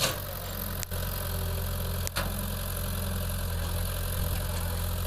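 Excavator's diesel engine running steadily with a low hum, broken by two brief clicks about one and two seconds in.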